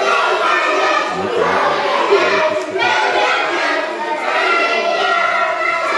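A group of children singing together, loud and continuous, with many voices at once.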